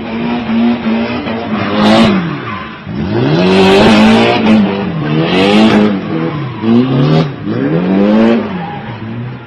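Car engine revving hard and dropping back, about four times over, as the car spins in a burnout and drift. Its tyres spin and screech in bursts with each rev.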